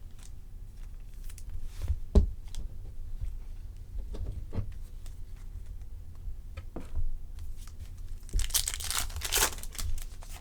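Trading card pack wrapper torn open and crinkled for a second or two about eight seconds in, after scattered small clicks and taps of cards being handled.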